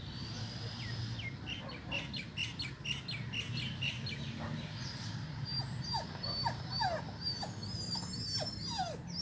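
Animal calls: short falling whines, repeated several times from about six seconds in, with quick high chirps, over a low steady rumble.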